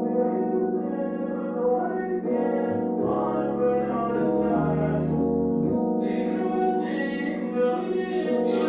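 Recorded music playing, with held keyboard chords that change every second or two and singing over them.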